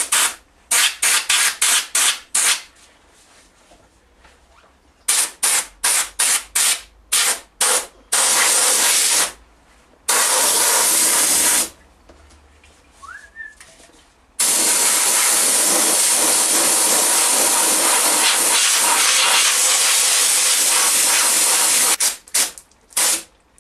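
Air-powered degreaser spray gun at about 40 psi hissing in quick short squirts, then longer sprays, the longest lasting about eight seconds, before a few more short squirts near the end.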